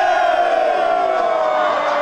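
A group of men shouting together in one long, held cheer, several voices overlapping.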